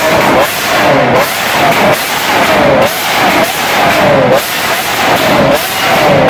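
Lamborghini Aventador LP700-4's naturally aspirated 6.5-litre V12 revved over and over through a valved, catless Fi Exhaust catback, the revs climbing and dropping back about every second and a half. The exhaust backfires on the overrun as it spits flame.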